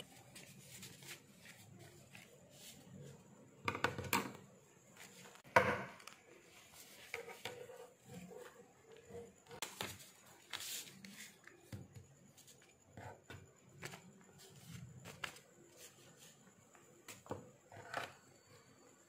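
Faint handling of a paper booklet: scattered soft rustles and light taps of paper, the loudest about four and just under six seconds in.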